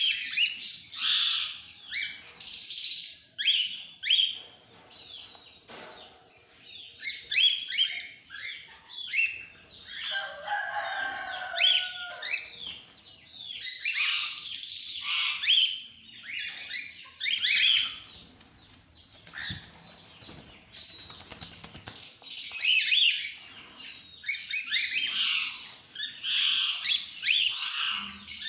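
A flock of cockatiels chirping and calling, with bursts of quick, sharp, high chirps one over another throughout and a lower warbling call about ten seconds in.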